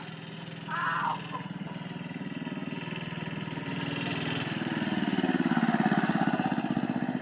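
Homemade minibike's small engine running, revving up about four seconds in and getting louder as the bike accelerates, then holding at high revs.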